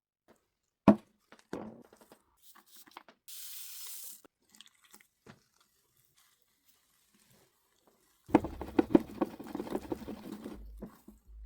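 Food-preparation handling sounds. A sharp knock comes about a second in and a short hiss a little past three seconds; from about eight seconds in there are nearly three seconds of busy clattering and scraping.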